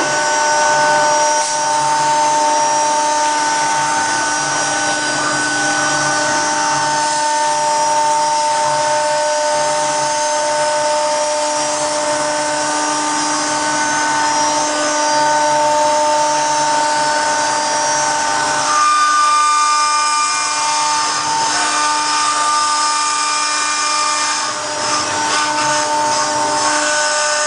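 CNC router spindle running with a steady, high whine over a hiss as it works on marble; the pitch of the whine shifts about two-thirds of the way through.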